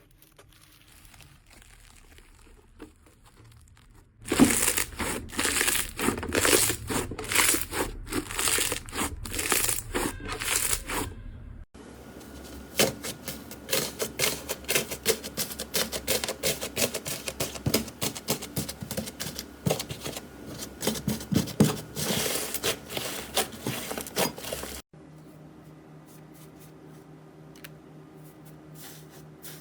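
Slime being worked by hand, making dense crunchy crackling and popping, in loud stretches that cut off abruptly at about 12 and 25 seconds in; softer, quieter handling before and after.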